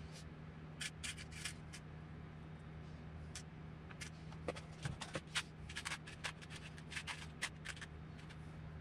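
Small steel screws clicking and rattling in plastic parts containers as a hand sorts through them. The clicks come in irregular flurries, busiest in the second half.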